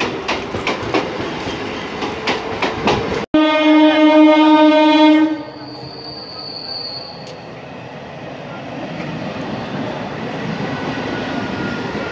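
Electric suburban local train (EMU) running past, its wheels clattering over the rail joints. After an abrupt cut comes a loud, steady train horn blast of about two seconds. Then a lower rumble of the moving train follows, with a brief high whine just after the horn.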